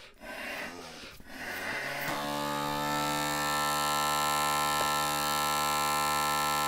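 Flemish bagpipe being blown up: breathy puffs into the blowpipe as the bag fills, then about two seconds in the drones start and hold a steady buzzing drone on D. The chanter is not yet sounding.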